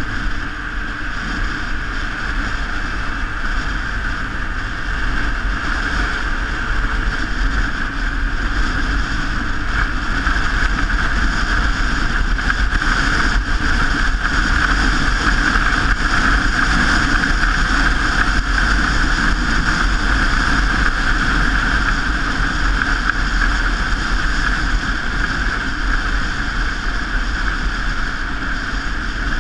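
Wind rushing over the microphone of a camera on a moving bicycle, a steady loud rush with low buffeting, swelling a little in the middle.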